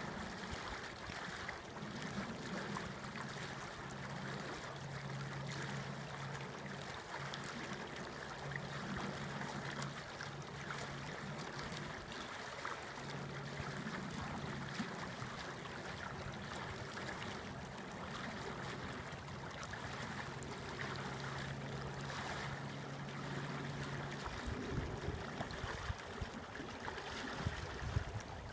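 Small brook babbling and trickling as it flows out of the snow and under ice. A low steady hum sits beneath the water, dropping out a few times and stopping near the end.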